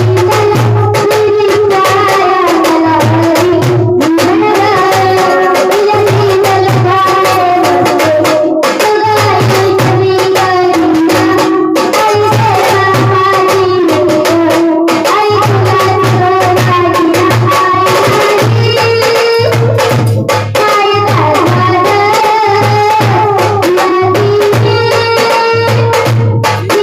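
Music: a flowing melodic lead over hand-drum percussion in the manner of tabla, keeping a steady beat.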